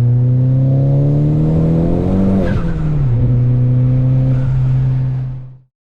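Chevrolet HHR SS's turbocharged 2.0-litre Ecotec four-cylinder accelerating: revs climb for about two seconds, drop sharply with a gear change, then hold steady before fading out near the end.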